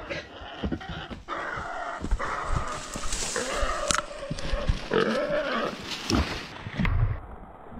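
Hunting dogs baying on the trail of wild boar: long, wavering calls repeated every second or so, over the crackle and rustle of undergrowth.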